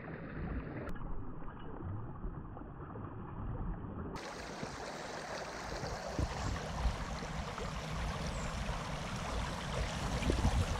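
Shallow river water rushing steadily over a stony riffle, with occasional low thumps on the microphone.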